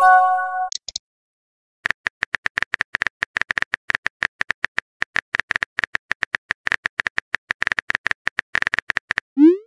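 Messaging-app sound effects: a short multi-tone chime as a message arrives. About a second later comes a long run of rapid keyboard tap clicks as a message is typed, ending in a short rising swoosh as it is sent.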